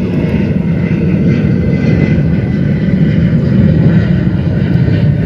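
Loud, steady rumble of an airplane's engines, swelling slightly partway through.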